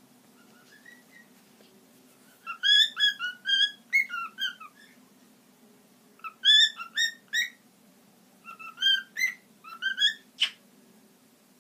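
Young cockatiel whistling: three runs of short, quick rising and falling notes, then a single sharp chirp near the end.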